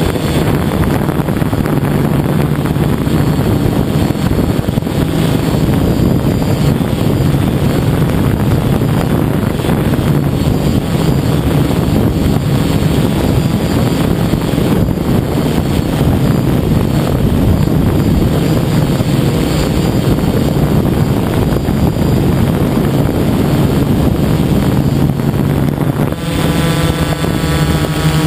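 DJI F550 hexacopter's electric motors and freshly balanced propellers buzzing steadily in flight, heard from the camera on its frame, with wind rushing over the microphone. Near the end the motor hum becomes a clearer, steadier tone.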